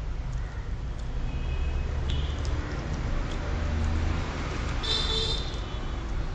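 Road traffic noise with a motor vehicle passing, the low rumble swelling from about one and a half to four and a half seconds in. A short high-pitched tone sounds about five seconds in, over a few faint clicks.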